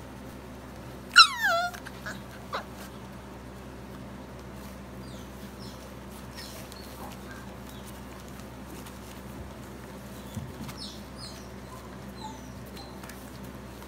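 A puppy gives one loud yelp that falls in pitch about a second in, followed by a couple of short whimpers and a few faint high squeaks later on, over a steady low hum.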